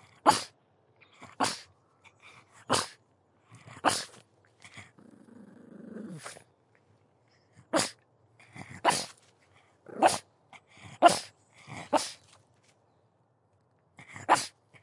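A pug barking in single short, sharp barks, mostly about a second apart, with a low drawn-out grumble about five seconds in and a pause of around two seconds near the end.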